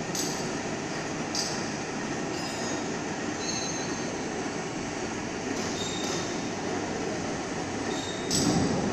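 Steady machinery noise with short, high-pitched squeals at irregular moments and a brief louder swell near the end.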